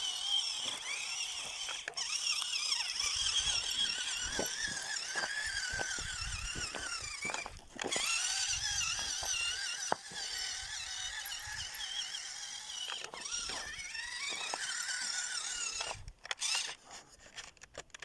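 Radio-controlled toy car's small electric motor and gearbox whining as it drives, the pitch wavering up and down with the throttle, running again after its broken motor wires were resoldered. The whine breaks off briefly about halfway and stops near the end, leaving a few clicks.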